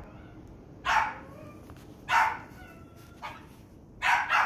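A dog barking at a deer, single barks about a second apart, then two quick barks near the end.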